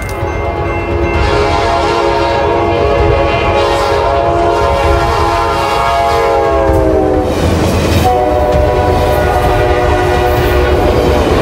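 Locomotive air horn sounding a long blast over the low rumble of a running train. Its pitch slides down about seven seconds in, then it sounds again about a second later.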